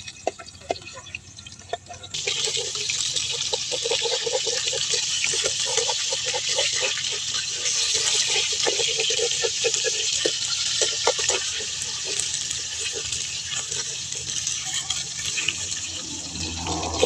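A whole eel deep-frying in hot oil in a wok, sizzling loudly and steadily with crackling pops. Before the loud sizzle starts suddenly about two seconds in, only faint scattered ticks of the oil are heard.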